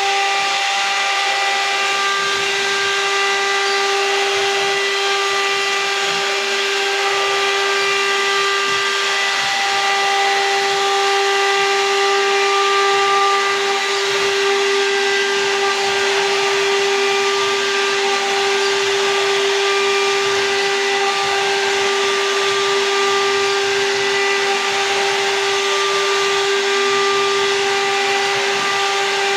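CNC router spindle running at a steady high pitch as the bit routes grooves into a wood-veneered door panel, with a hiss of cutting under the whine.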